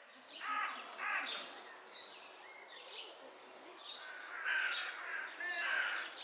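Crows calling, several calls one after another with short pauses between them.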